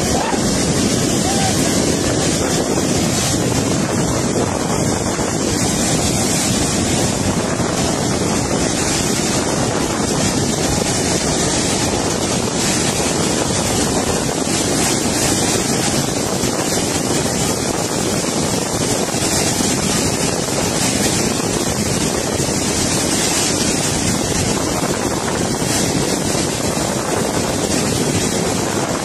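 Steady rushing of floodwater as the foaming front of a flash flood surges over a dry riverbed, with wind buffeting the microphone.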